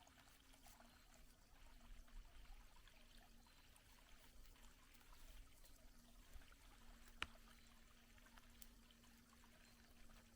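Near silence: a faint steady hiss of outdoor background, broken by a single sharp click about seven seconds in.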